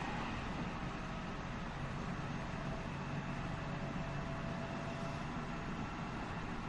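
Interior running sound of a JR West 207 series 1000-subseries electric train, motor car KuMoHa 207-1037: a steady rumble of wheels on rail, with a faint steady tone through the middle.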